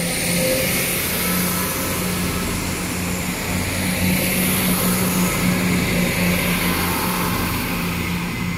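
CrossCountry Class 170 Turbostar diesel multiple unit pulling away under power: a steady diesel engine drone with a low hum, over wheel and rail noise.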